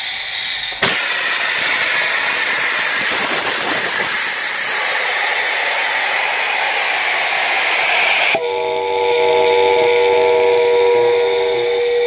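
Steam hissing hard from a small vertical steam boiler's venting pop-off valve as it is tested under pressure. The hiss cuts off abruptly about eight seconds in, and a steady hum of several tones follows.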